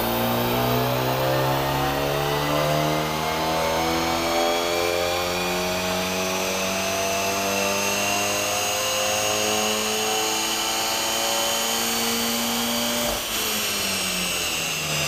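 Car engine running a full-throttle pull on a chassis dynamometer: the engine note climbs slowly and steadily in pitch for about thirteen seconds, with a high whine rising alongside, then falls away as the throttle is released near the end.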